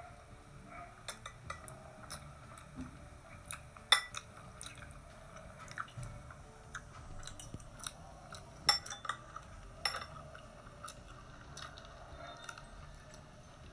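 Metal spoon and fork clinking and scraping on ceramic plates, in scattered sharp clicks, the loudest about 4 seconds in and others near 9 and 10 seconds, with close-up chewing between.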